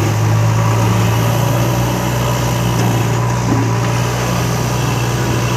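Heavy diesel engine running at a steady, unchanging pitch: a JCB backhoe loader pushing a truck stuck in mud with its front bucket.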